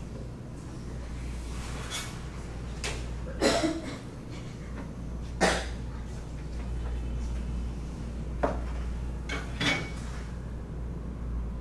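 Scattered sharp knocks and clacks of a metal bench scraper on a wooden worktable as dough is cut into pieces, the loudest a little after three seconds in, over a steady low hum.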